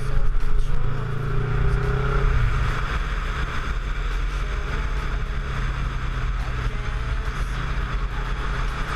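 Kawasaki Versys 650 parallel-twin engine running at fairly steady revs while the bike is ridden, under a steady hiss; the engine note shifts slightly about two seconds in.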